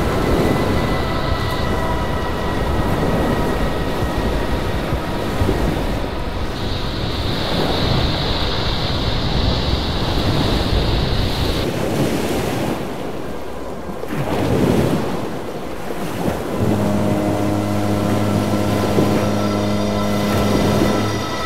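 Ocean surf breaking and washing over rocks, with wind noise on the microphone. Near the end a steady low tone, like a horn, joins in and holds for about four seconds.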